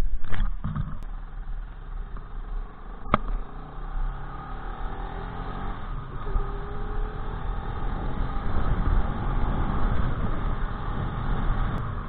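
Bajaj Pulsar RS200's single-cylinder engine revving hard as the bike pulls away, then running on steadily as it is ridden along, its pitch rising and falling with the throttle. A single sharp click about three seconds in.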